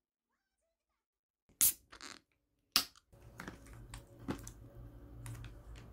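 Handling of plastic takeaway food packaging: two sharp crackles about a second apart, then light clicks and rustles over a low steady hum.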